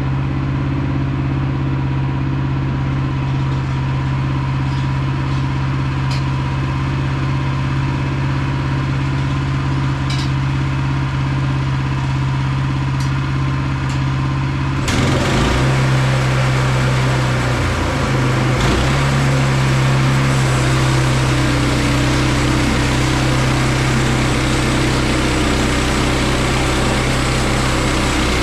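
Woodland Mills HM122 portable bandsaw sawmill's gas engine running steadily, with a few faint ticks. About halfway through, the engine note changes and a loud, steady sawing hiss joins it as the band blade cuts a slab off the log.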